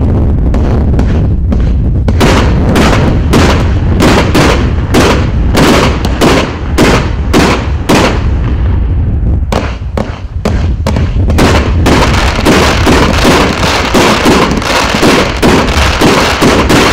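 A 157-shot consumer fireworks cake (FP-B367) firing a rapid, loud string of shots and aerial bursts, about two to three a second. After a brief lull about ten seconds in, the shots come thick and near-continuous.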